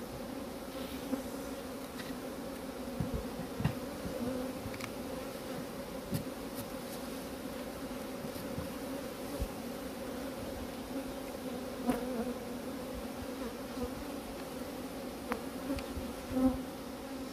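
A colony of western honeybees buzzing in a steady hum around an opened hive, with a few light knocks and clicks from the wooden frames being handled.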